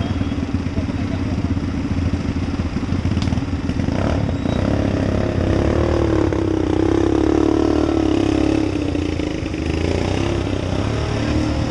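ATV (quad bike) engines idling, with one revving up and dropping back a little past the middle, the loudest part. A brief knock comes about three or four seconds in.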